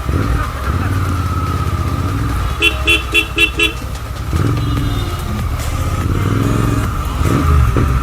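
Motorcycle engine running on the road, with a vehicle horn giving five quick beeps about three seconds in, then the engine note swelling.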